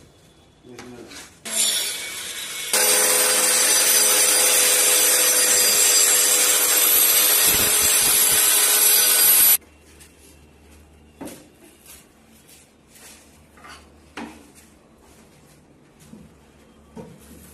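A power tool working wood runs steadily for about eight seconds, getting louder a second after it starts, then cuts off suddenly. Light knocks and taps follow.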